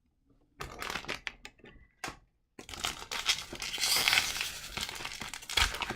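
Hockey card pack wrapper being torn open and crinkled by hand, in two spells of crackling with a brief break just after 2 s, the second longer and denser.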